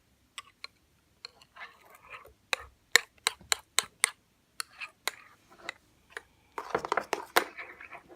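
A spoon tapping and clicking irregularly against a plate while stirring a sticky slime mixture of glue, shaving foam and paint. About six and a half seconds in the clicking turns into a dense run of rapid clicks and scraping.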